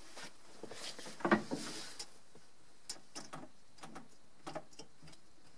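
A scatter of light clicks and knocks at irregular intervals, the loudest a little over a second in.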